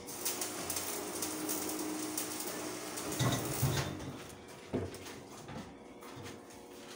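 Electric arc welding on a steel staircase frame: a crackling hiss for about four seconds that then stops, followed by a single knock.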